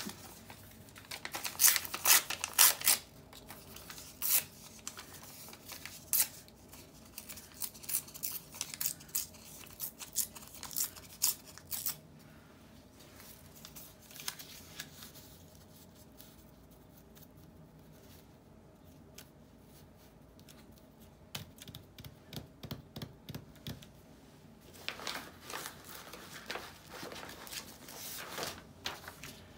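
Book-page paper being torn by hand: loud ripping about two seconds in, then scattered rustling and crinkling as the pieces are handled and pressed down, with more tearing near the end.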